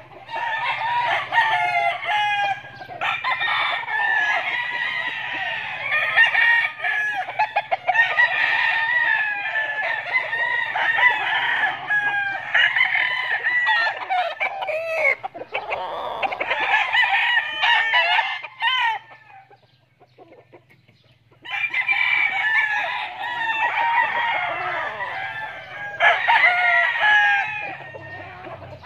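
Several roosters crowing over one another, one call overlapping the next almost without a break, with a lull of about two seconds about two-thirds through.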